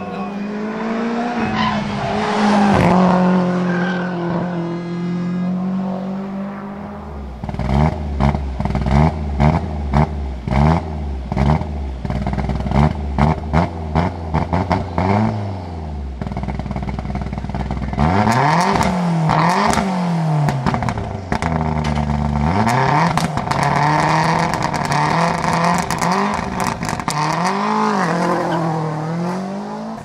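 Toyota Celica GT-4 ST165 Group A rally car's turbocharged four-cylinder engine: first driving past at speed and fading away, then, standing still, revved in quick repeated blips with sharp cracks and pops from the exhaust, followed by longer, slower revs.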